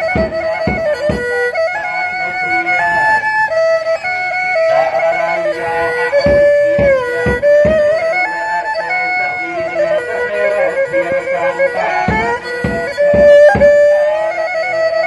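Traditional Cambodian funeral music: a reedy wind instrument plays a continuous melody that slides and bends between held notes, over low drum strokes that come in short clusters every few seconds.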